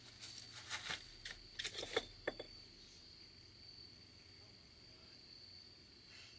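A short flurry of rustles and thumps in the first two and a half seconds, loudest near two seconds in: a person flailing at a spider web and stumbling down onto grass. Crickets chirp steadily underneath at one high pitch.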